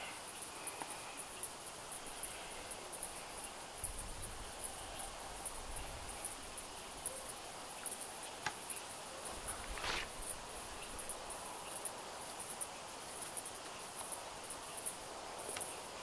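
Insects chirping in a rapid, high-pitched pulsing rhythm, with a few soft thuds and a couple of sharp clicks from the stretcher tent's frame and canvas being handled.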